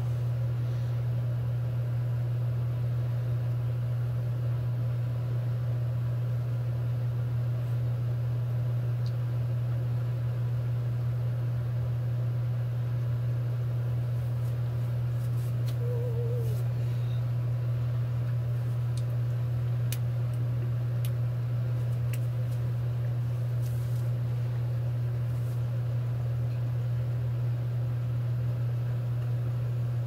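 Steady low hum with no change in level, with a few faint clicks around two-thirds of the way in.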